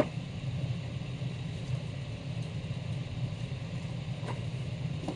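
Steady low background hum with no words, marked by a short click at the start and a couple of faint taps near the end.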